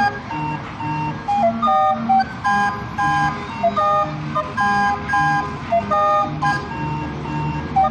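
Chilean barrel organ (organillo) playing a bouncy tune: a melody of short, steady, pipe-like notes over an alternating bass.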